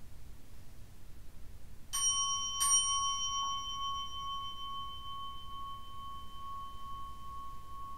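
Small Buddhist bowl bell struck twice, a little under a second apart, the second strike louder. It rings a clear, sustained tone that fades slowly, marking the prostrations of a Zen ceremony.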